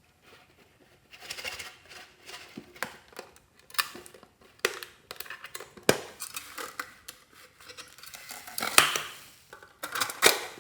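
Slime and small items being handled and mixed by hand: irregular clicks, taps and crackles, with a louder crackling burst about nine seconds in.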